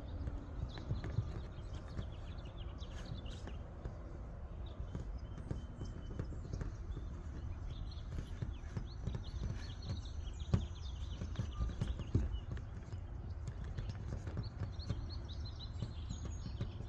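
Irregular soft knocks and rubbing from hands pressing epoxy putty onto a truck's sheet-metal roof, over a steady low rumble.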